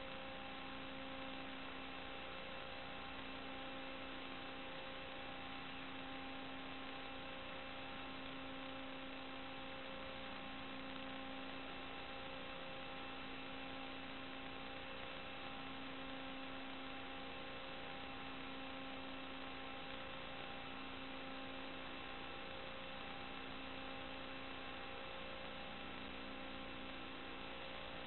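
Steady hiss with several constant humming tones: static and electrical interference on the audio channel of an analog FPV video link, carrying no real sound from the quadcopter.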